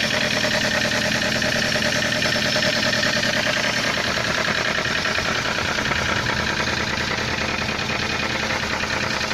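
Toyota 1SZ-FE four-cylinder petrol engine idling cold with a steady, fast diesel-like clatter. The owner thinks it looks like an exhaust-system problem.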